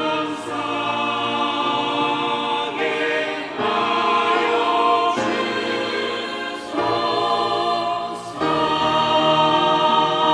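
Church choir singing a hymn in long held chords, changing chord about three times.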